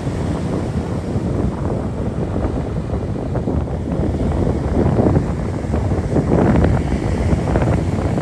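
Wind buffeting the microphone over ocean surf at the shore, a dense rumble that swells louder twice in the second half.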